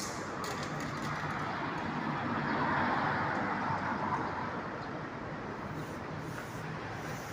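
Vehicle noise: a steady engine hum under a rushing sound that swells about three seconds in and then eases off.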